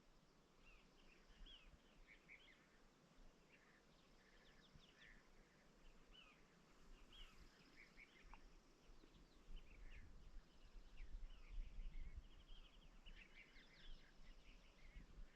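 Faint songbirds chirping and singing, many short overlapping calls and trills, busier in the second half, over a low steady rumble.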